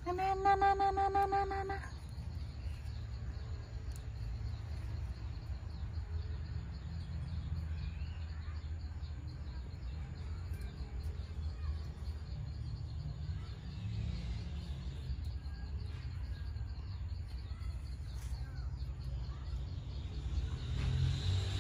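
A baby monkey gives one steady, high-pitched call lasting about a second and a half, right at the start. A steady high buzz and a low rumble run underneath it.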